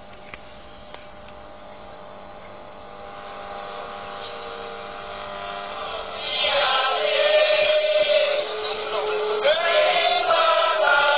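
Speaker output of a homemade regenerative shortwave receiver with a transistor detector and LM386 audio amplifier: faint hiss with thin steady whistles that slowly grow louder, then about six seconds in a strong shortwave broadcast comes in much louder, a voice-like signal of held tones with whistles that slide up and down in pitch as the set is adjusted.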